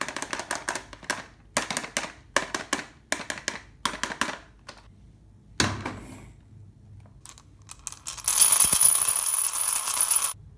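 Hard plastic toy dump truck being handled, with short runs of clicks and rattles and a knock as it is set down. About eight seconds in, marbles are swirled in a drinking glass, rattling and clinking against it for about two seconds. The marbles are the loudest sound.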